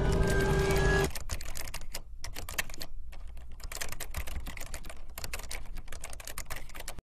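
A music bed stops about a second in, and rapid, irregular mechanical clicking follows.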